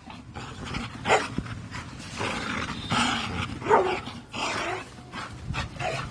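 American pit bull terrier barking in about half a dozen short calls spaced irregularly, some of them bending in pitch.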